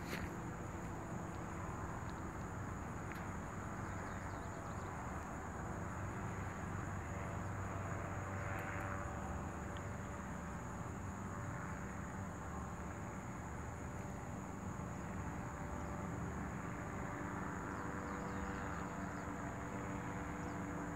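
Distant powered parachute engine droning steadily overhead, under a steady high chirring of insects.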